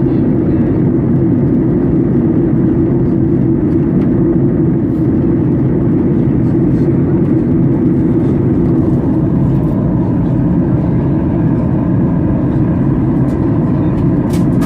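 Steady low drone of an airliner cabin in flight: engine and airflow noise, unchanging throughout, with a light click near the end.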